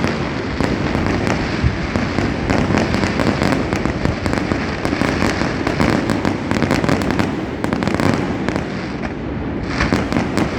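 Many fireworks going off at once across a city: a dense, unbroken barrage of overlapping bangs and crackling with no pause.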